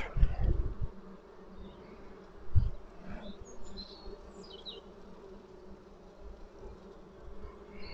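Honeybees buzzing in a steady hum from an open hive with a frame of bees lifted out. Low thumps come at the start and again about two and a half seconds in.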